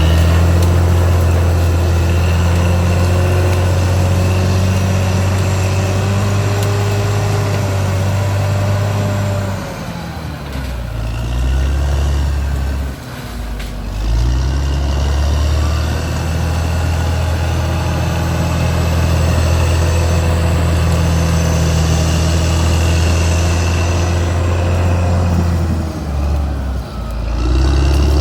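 Caterpillar D6R XL bulldozer's diesel engine running steadily, its low note dipping and changing twice, about ten seconds in and again near the end.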